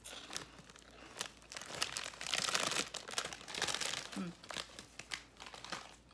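The plastic bag of Utz Baked Cheddar Cheese Balls crinkles as it is handled, in irregular crackling bursts that are heaviest in the middle. There is one brief vocal sound about four seconds in.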